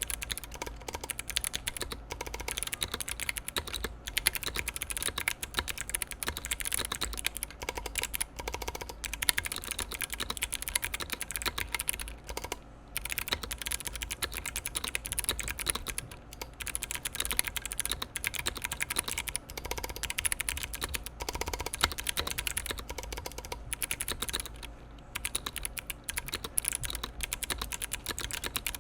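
Fast, continuous typing on a mechanical keyboard with clicky Kailh Box White switches in an aluminium 60% case on an aluminium plate, with short pauses between bursts.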